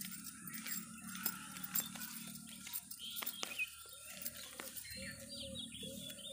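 Rice seedlings being pulled by hand from dry nursery soil: soft rustling with small sharp snaps and clicks as roots tear from the earth. Faint drawn-out calls come in about four seconds in, with bird chirps near the end.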